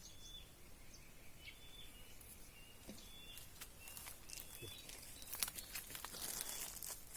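Faint background noise with short, high chirping calls repeating every half second or so. From about five seconds in there are light clicks and rustling.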